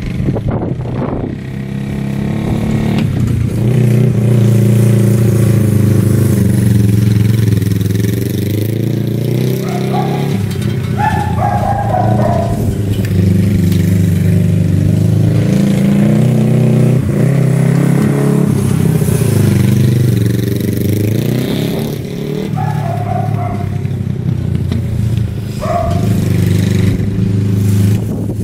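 1974 Honda CB360's parallel-twin engine running, its revs rising and falling several times. It is running without its air box, and the owner thinks the carbs need the air box's back pressure to run right.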